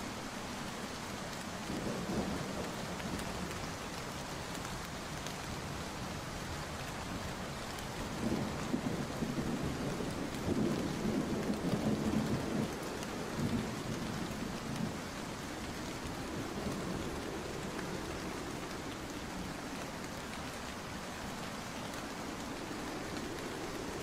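Steady heavy rain hissing, with low rolling rumbles of distant thunder: one about two seconds in and a longer, louder stretch from about eight to fifteen seconds in.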